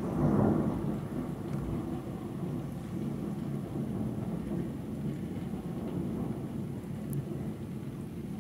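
Thunder rumbling: a loud low swell about half a second in, then a long, continuous low rumble that rolls on without a break.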